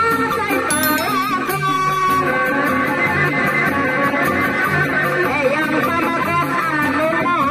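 Sundanese reak ensemble music: a reedy tarompet plays a winding, ornamented melody over a beat of drums.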